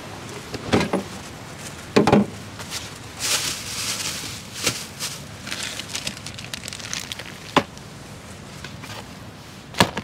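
Camp gear being handled on a plastic storage bin: scattered knocks, clicks and rustles as lids, cans and food packets are moved, with a louder knock about two seconds in and another near the end.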